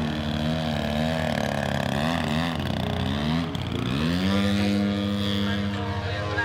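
Desert Aircraft DA120 twin-cylinder two-stroke gas engine of a large-scale RC aerobatic plane running under throttle. Its pitch swings up and down several times, dips about three and a half seconds in, then climbs and holds steady.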